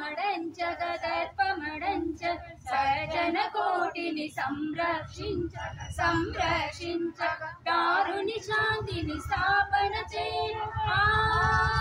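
A group of women singing a devotional song together.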